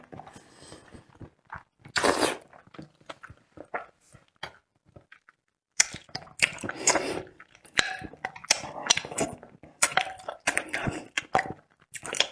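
Close-miked eating of braised chicken wings: chewing and biting in irregular short bursts of clicks, with a pause about five seconds in.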